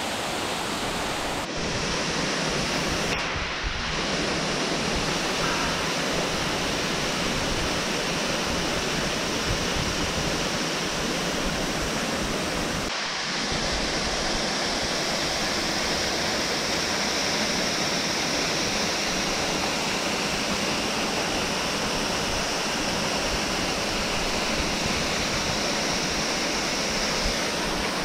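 Waterfall pouring into a rock pool: a steady rush of falling water that shifts in tone briefly about a second and a half, three and a half and thirteen seconds in.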